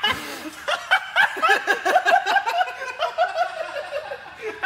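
Someone laughing: a long, unbroken run of quick giggles.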